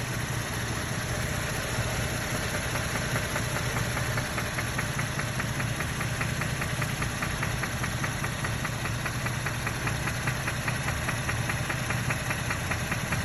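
2012 Chevrolet Camaro RS's 3.6-litre V6 running steadily with a rapid, evenly spaced knock that becomes clearer a few seconds in. A fresh oil change has not cured the knock.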